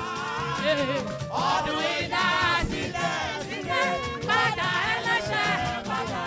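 Women's church choir singing a lively gospel song into microphones, one lead voice out in front of the others.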